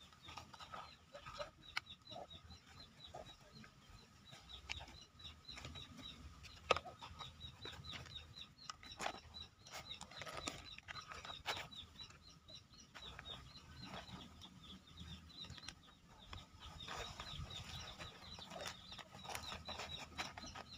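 Black plastic nursery bags being handled and soil pressed in with gloved hands: soft rustling and crinkling with scattered small clicks. Birds chirp faintly in the background.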